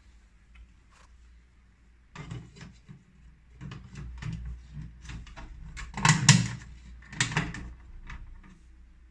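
Plastic housing of a Kaufel emergency exit light being pressed and clipped onto its plastic wall base by hand: a run of plastic clacks, knocks and scraping starting about two seconds in, with the loudest clacks about six and seven seconds in.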